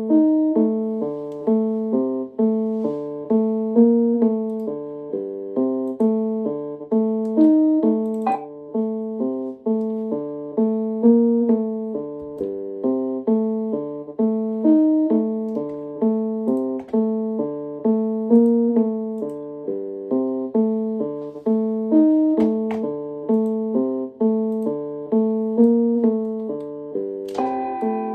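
A short electric-piano chord phrase looped on a Maschine MK2 beat, repeating about every four seconds with no drums under it. A new, higher layer comes in near the end.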